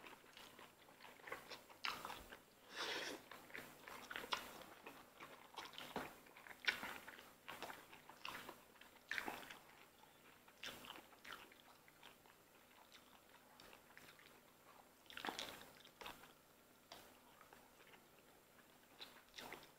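Quiet eating sounds from garlic noodles and lobster: soft chewing, slurping and lip smacking in short scattered bursts with quiet gaps between.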